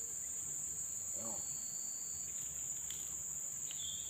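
Insects droning in a steady, unbroken high-pitched chorus. A short voice-like sound comes about a second in.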